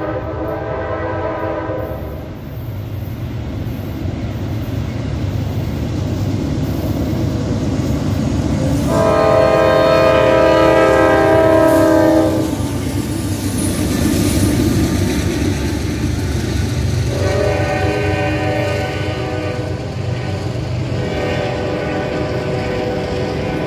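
Diesel freight locomotive horn sounding a series of long blasts: one ending about two seconds in, the loudest from about nine to twelve seconds in as the GE locomotives pass, and two more near the end. Under it runs the steady rumble of the locomotives and the long train of autorack cars rolling by.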